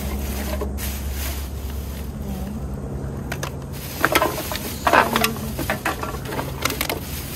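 Clear plastic trash bag rustling and crinkling in bursts as hands dig through it, with small toiletry bottles knocking together. The loudest handling comes about four and five seconds in. A steady low mechanical hum runs underneath.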